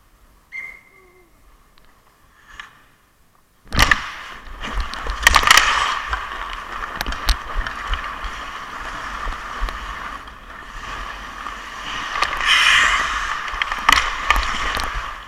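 Ice hockey skates striding and scraping across the ice, starting suddenly about four seconds in and running on loudly, with sharp clicks of a hockey stick on the ice or puck and wind rumbling on the helmet-mounted camera.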